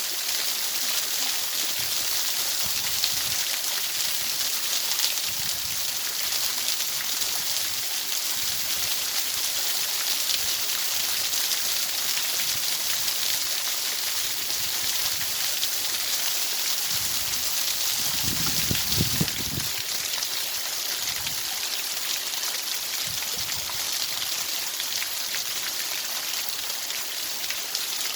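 Steady hiss of rushing water, with a short low rumble about two-thirds of the way through.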